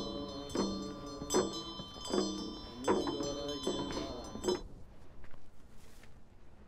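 Bells ringing, struck in a slow, even rhythm about every three-quarters of a second, each strike leaving a shimmering metallic ring; the ringing stops about four and a half seconds in, leaving only faint rustling.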